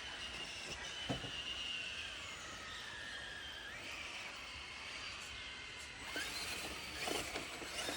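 Electric motor of a Traxxas RC off-road truck whining as it crawls slowly, the pitch drifting up and down with the throttle. A knock about a second in and a few clattering knocks near the end.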